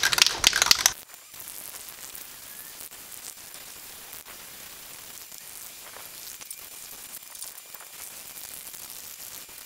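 Aerosol spray-paint can rattling quickly as it is shaken for about the first second, its mixing ball clattering inside. Then comes a steady hiss of paint spraying from the can.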